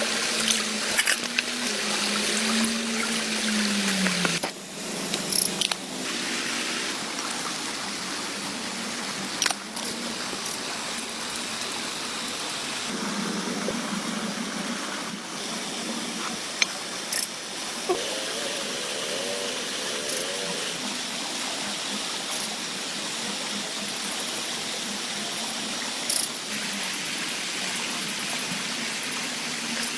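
Steady rain falling, a dense even hiss, with scattered sharp taps of drops landing close by.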